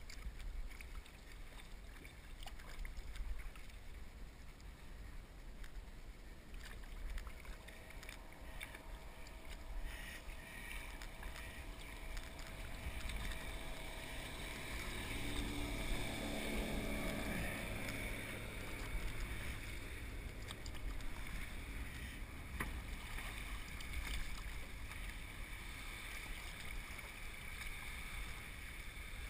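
An outboard-powered motorboat passing at planing speed without slowing, its engine hum swelling and bending in pitch as it goes by about halfway through. Kayak paddle strokes splash and drip, with wind rumbling on the microphone throughout.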